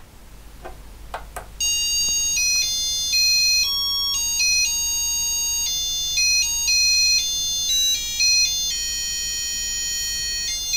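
HA5083 laser harp kit's piezo buzzer playing a tune of high-pitched electronic beeps, note after note of different lengths, starting about a second and a half in. Two faint clicks come just before the tune starts.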